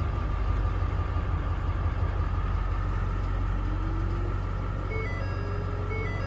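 Ford 6.7L Powerstroke V8 turbodiesel idling steadily just after a cold start, held at idle by the truck's aftertreatment-fault limp mode. A faint beep repeating about once a second starts about five seconds in.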